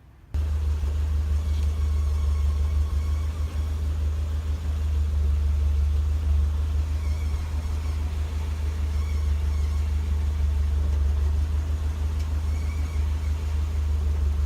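Renault Mégane RS 225's turbocharged four-cylinder engine idling steadily, with a low, even rumble that cuts in suddenly just after the start. It is running on newly replaced coil pack connectors, fitted to cure poor starting and a slight misfire at idle.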